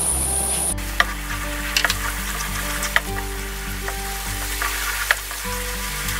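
Gochujang seasoning sauce frying in oil in a nonstick wok, sizzling while a wooden spatula stirs and scrapes it, with occasional light clicks of the spatula against the pan.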